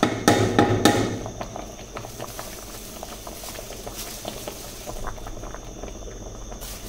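Plastic bag crinkling as ragi flour is poured from it into a pot of boiling water, loudest in the first second. Then irregular small pops and ticks of the water bubbling up through the flour.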